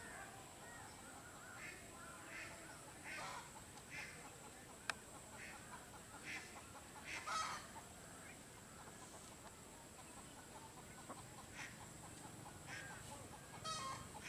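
Domestic fowl calling faintly in short, scattered calls every second or two, with a single sharp click about five seconds in.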